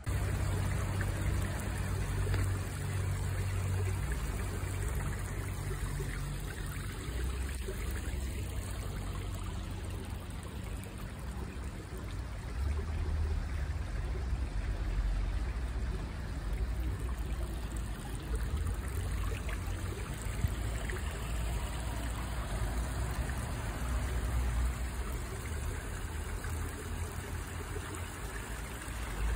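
Water running and trickling steadily along a shallow stone rill and down a cascade of stone basins into a pool, with a low rumble underneath.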